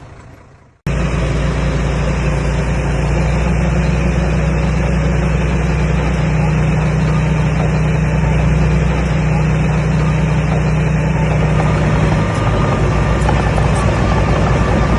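Diesel engine of a Komatsu D21A bulldozer running steadily under work. The sound cuts in abruptly just under a second in.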